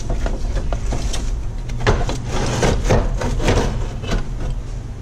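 Radiator and plastic fan shroud being worked out of a car's engine bay: a run of scrapes and knocks of plastic against the car, bunched in the middle.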